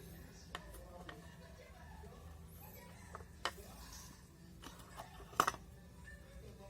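A few scattered sharp clicks and taps, loudest about three and a half and five and a half seconds in, over a low steady hum, as of small tools and plastic parts being handled during a repair.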